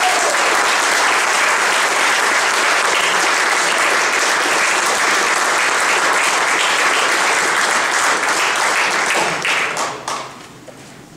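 Audience applauding steadily, the clapping dying away about ten seconds in.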